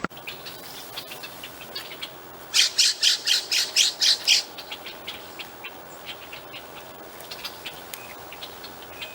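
A jay gives a fast run of about nine harsh calls, roughly five a second, starting about two and a half seconds in. Scattered short bird chirps and ticks sound around it.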